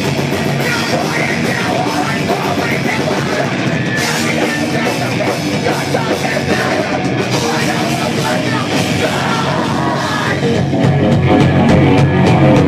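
A live post-hardcore rock band playing loud, with distorted guitars, bass and drums, and a vocalist singing into a microphone. It gets louder about ten seconds in.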